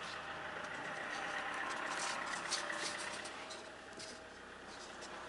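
Diesel engine of a SsangYong frame SUV running as the car is driven, heard from inside the cabin as a steady engine and road noise with a few light rattles. It swells slightly, then eases off about four seconds in.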